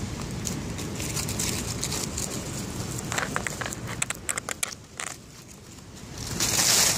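A muskrat chewing leaves close up, a quick run of sharp crunching clicks about three to five seconds in, over a steady low rumble. A louder burst of rustling follows near the end.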